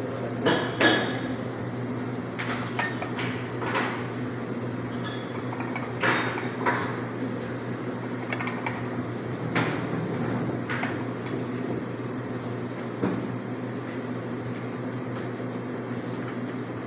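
Café counter background: a steady low hum with scattered clinks and knocks of cups, dishes and utensils, about ten over the stretch.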